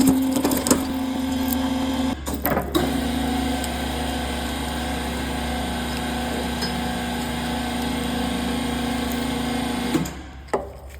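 150-ton hydraulic press's power unit running steadily with a hum while it presses down on a golf ball, with a few sharp clicks in the first three seconds. It shuts off about ten seconds in.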